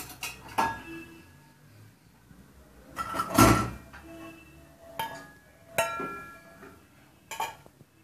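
Stainless steel bowls clinking and knocking against other steel utensils and the wire rack of a dishwasher as they are lifted out and handled, about five separate clinks with short metallic ringing, the loudest clatter about three seconds in.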